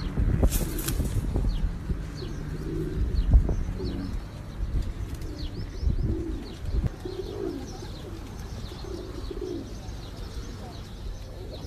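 Domestic pigeons cooing, low warbling coos repeated every second or so, with small birds chirping faintly above them. A few low thumps come in the first four seconds.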